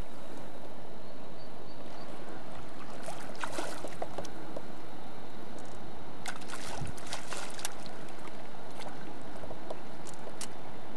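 A steady rush of river water, with sharp splashes a few times around the middle and near the end as a large golden mahseer is landed by hand in the shallows.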